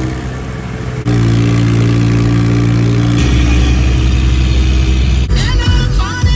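Tractor engine running steadily as the tractor drives along, its note shifting about a second in and again about three seconds in. Music with singing comes in near the end.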